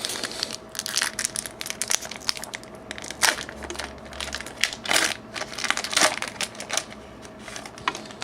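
Foil wrapper of a Pokémon trading card booster pack crinkling and crackling as it is handled and torn open, in a dense run of sharp, irregular crackles.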